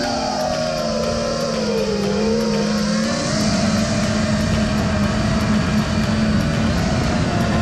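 Five-inch FPV quadcopter's brushless motors (Transtec 2207 1850KV) whining under throttle, with wind rush. The pitch falls over the first two seconds, rises again and then holds steady as the throttle is eased and brought back up.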